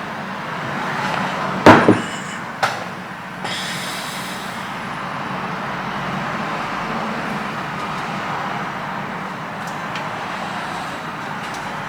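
Steady fan-like whir with two sharp knocks about a second apart near the start, followed by a brief high-pitched ringing tone.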